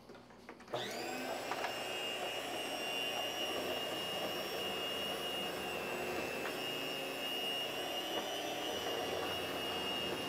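Ostba electric deli slicer's motor switching on about a second in, spinning up quickly to a steady whine as its circular blade slices a loaf of bread.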